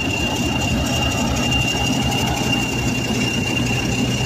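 Preserved English Electric Class 40 diesel locomotive running close by, its V16 diesel engine giving a steady low hum. Over it sits a constant high whistle, the turbocharger sound that earned the class its nickname "Whistlers".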